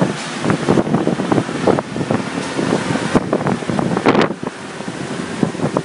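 Wind buffeting the microphone, an uneven noise with many short irregular gusts and crackles, over a steady background rumble.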